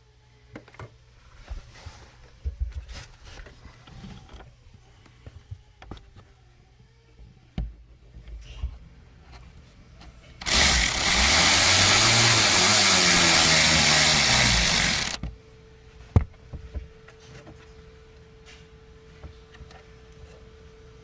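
A power tool runs loud and steadily for about five seconds, its pitch wavering as it works, most likely driving the screws of a fuel-pump lock ring repair kit into the tank. Small knocks and clicks of parts being handled come before it, and a sharp click follows it.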